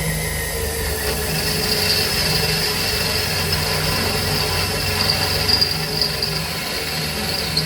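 Electric drill running under load, boring a hole through a truck's sheet-metal firewall: a steady motor whine with a high cutting hiss from about a second in until near the end.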